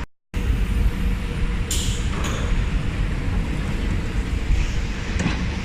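Metro train running, a steady low rumble with hiss. It starts after a brief cut to silence.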